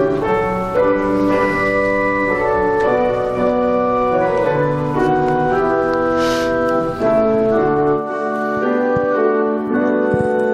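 Keyboard playing the introduction to a hymn: slow, held chords. The lowest bass notes drop out about eight seconds in.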